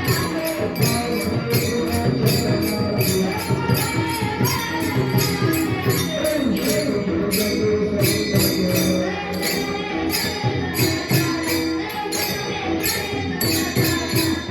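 Kirtan accompaniment: taal hand cymbals clashing in a fast, steady rhythm over drumming and a held drone, with a voice singing at times.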